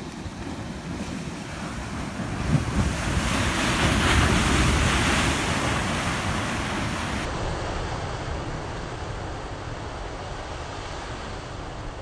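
Ocean waves breaking against a rocky reef ledge. The crash of surf swells to a peak about four seconds in, then eases into washing whitewash. Wind is buffeting the microphone.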